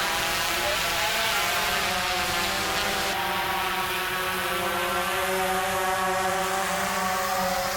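Quadcopter drone's propellers whirring in a steady buzz, the pitch drifting slightly up and down.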